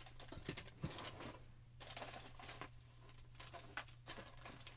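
Faint, scattered clicks and rustles of hands handling craft supplies, over a low steady hum.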